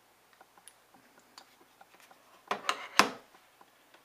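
Handling sounds from a plastic USB hard-drive enclosure and its cable: a few faint ticks, then a short cluster of sharp clicks and knocks about two and a half seconds in, the loudest a second later.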